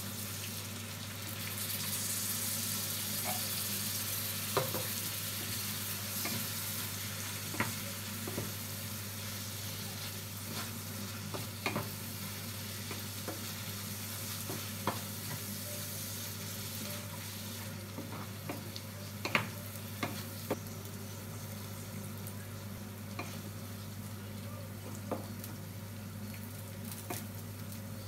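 Pork frying in a pan, sizzling; the sizzle swells for a few seconds near the start as canned chopped tomatoes go in. A wooden spatula then stirs the mixture, knocking against the pan now and then.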